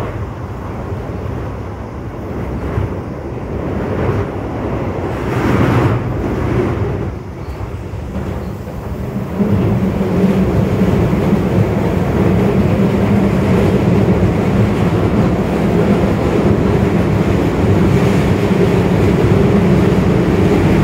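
Keio 8000 series electric train, with Hitachi SiC-VVVF drive, running along the line: continuous rolling and running noise. It swells briefly about five to seven seconds in. From about ten seconds in it becomes a louder, steady drone with a low hum.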